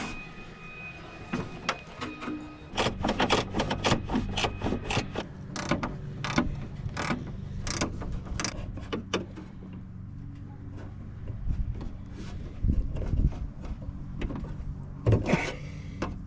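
A quick, irregular run of sharp metallic clicks and ratcheting while the rear cargo door handle and lock assembly is fastened back together, over a steady low hum.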